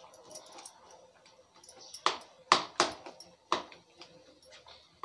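Steel ladle clinking against a non-stick kadai while stirring a thick curry, four sharp taps in about a second and a half.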